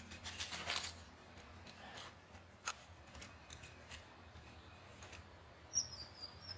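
Quiet ambience with a burst of light rustling and clicking in the first second, scattered small clicks including one sharp click a little before the middle, and a short high chirp falling slightly in pitch near the end.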